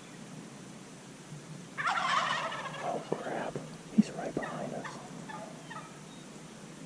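A Merriam's wild turkey tom gobbling once, a rapid rattling call about two seconds in that trails off over the next couple of seconds. A short sharp click about four seconds in.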